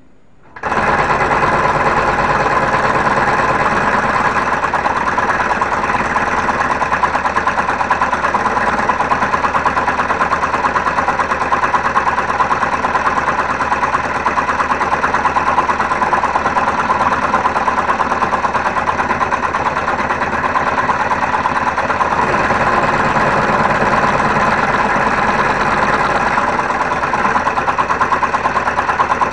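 Homemade scroll saw switching on about half a second in, then running steadily with an even mechanical buzz.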